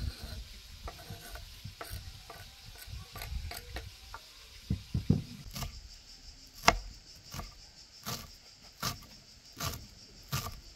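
Irregular sharp clicks and light knocks, with a loud one at the start and a run of sharper ones about once a second in the second half.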